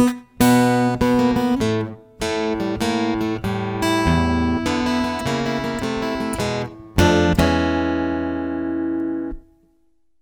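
Acoustic guitar playing a short example in phrases of plucked notes and chords with brief breaks. It ends on a chord that rings for about two seconds and is then damped suddenly.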